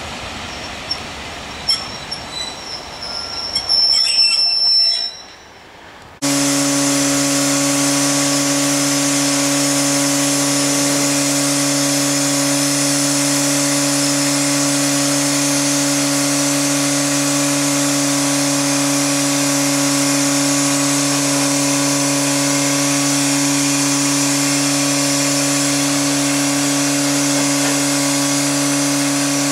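LMS Class 5MT 'Black 5' 4-6-0 steam locomotive rolling slowly with a few short high squeals from its wheels or brakes. After a sudden cut about six seconds in, it stands with a loud, steady hiss of escaping steam over a constant low hum.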